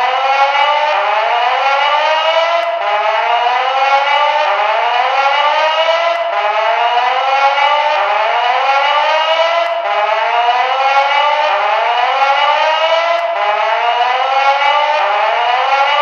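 Recreated Firecom 8500 fire alarm electronic whoop tone: a rising sweep repeated over and over, each whoop overlapping the next. The whoop is the building's evacuation signal.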